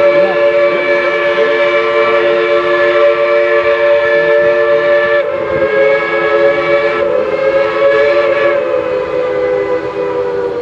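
Steam locomotive's chime whistle blowing a long multi-tone chord, broken off briefly about five seconds in and then sounded again until near the end.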